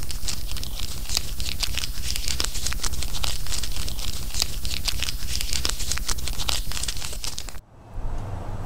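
Paper bag crumpling and crinkling close to the microphone: a dense run of sharp crackles that stops abruptly near the end, over a low steady rumble.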